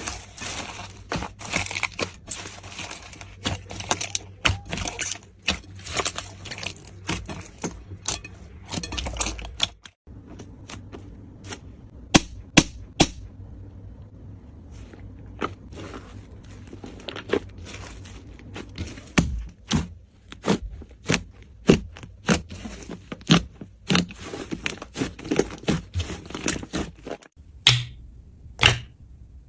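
Slime being squeezed, poked and pressed by hand, giving irregular crunchy crackles and sharp pops, with a short break about a third of the way through.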